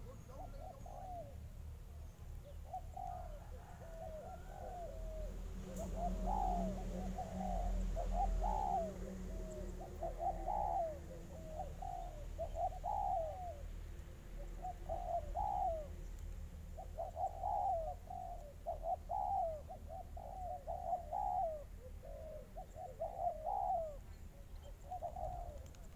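Spotted doves cooing: a long run of short, quickly repeated rising-and-falling coo notes in bursts of several at a time, with brief gaps between bursts.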